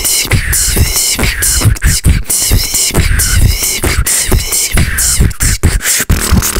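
Beatbox-style vocal rhythm: mouth-made thumps under a chanted 'beep boop' vocal line, keeping a steady beat.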